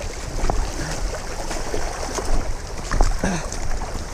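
Shallow stream rushing over stones, a steady wash of water, with a few faint knocks as a cast net and its rope are handled.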